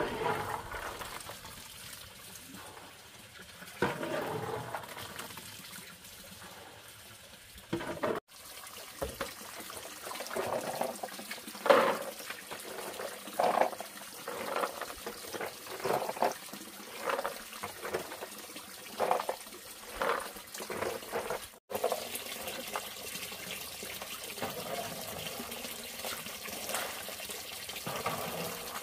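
Water splashing and trickling, with a run of separate splashes about once a second through the middle stretch; the sound breaks off suddenly twice.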